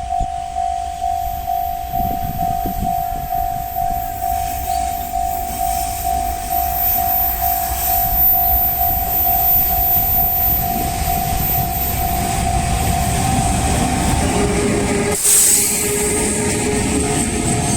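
Japanese level-crossing warning bell ringing in a steady, pulsing tone while a train approaches and passes, its running noise growing louder from about four seconds in. There is a short loud burst near the end.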